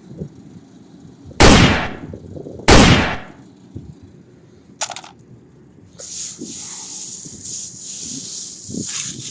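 Two loud gunshot bangs about a second and a half apart, each dying away over half a second, then a shorter sharp crack a couple of seconds later. After that comes a steady hissing rattle.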